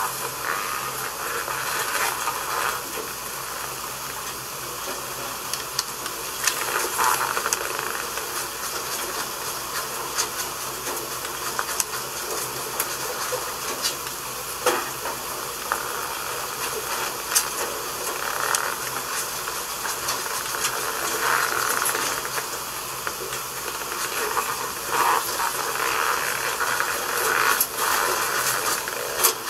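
Steady hiss with scattered clicks and a few brief rustling swells.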